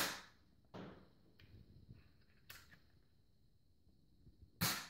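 Nerf Zombie Strike Double Strike foam-dart pistol being fired: a sharp pop right at the start and another near the end, with a few fainter clicks and knocks in between.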